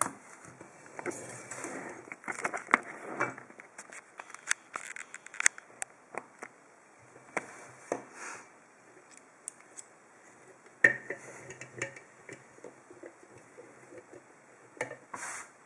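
Hands handling a metal padlock and small tools on a work surface: scattered sharp clicks, taps and knocks with short bursts of rustling.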